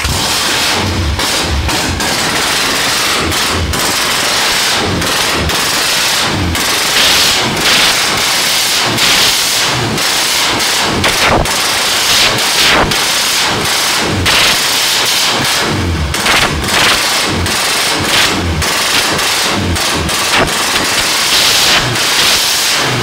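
Small engine running loud and rough on its first run, with a dense, irregular crackle of pops throughout.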